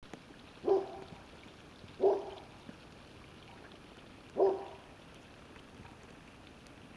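A dog barking three times, single barks a second or two apart.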